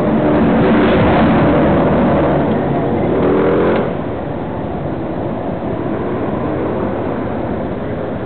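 Motor-vehicle engine and street-traffic noise heard from a moving vehicle: an engine revs up with a rising pitch about three seconds in, then the sound drops sharply at about four seconds to a steadier, quieter rumble as the vehicle comes up behind the car ahead.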